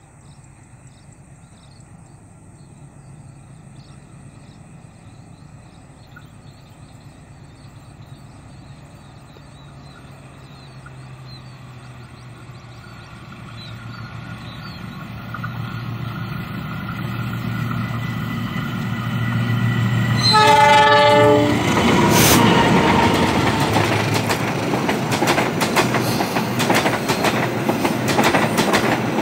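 A passenger train approaching, its low rumble growing steadily louder. About twenty seconds in it sounds its horn once, briefly. It then passes close by, with loud clickety-clack of wheels over the rail joints.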